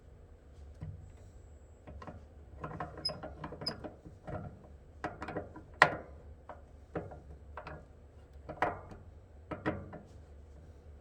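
Irregular mechanical clicks, taps and rattles of hand work on a washing machine's parts and panels, with one sharp snap about six seconds in.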